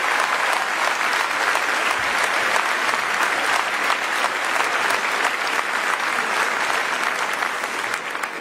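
Large audience applauding steadily, the clapping dying down near the end.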